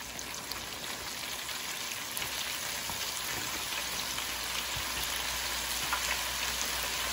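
Floured shrimp deep-frying in hot oil in an electric deep fryer: a steady sizzle full of fine crackles, slowly growing a little louder.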